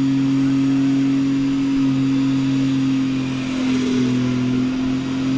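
Car engine held at high revs during a tyre burnout, a loud steady note with slight dips late on.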